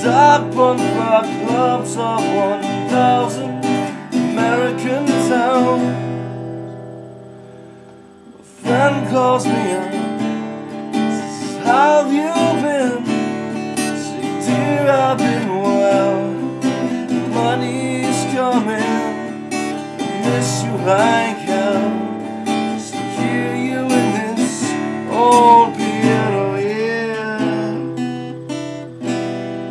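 A man singing and strumming an acoustic guitar. About six seconds in the playing rings out and fades for a couple of seconds, then the strumming and singing start again.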